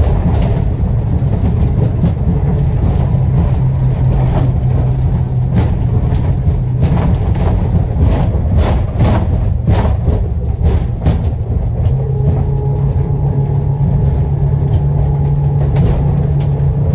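Twin Honda 250 hp outboard engines running under way, heard inside the boat's wheelhouse as a steady low drone, with a run of sharp knocks in the middle. The engine note shifts slightly about twelve seconds in.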